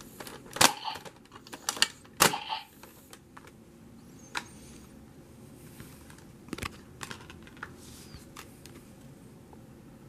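Sharp plastic clicks and clacks from handling a DX Dragvisor Zwei toy. Three loud ones come in the first two and a half seconds, then lighter, scattered clicks.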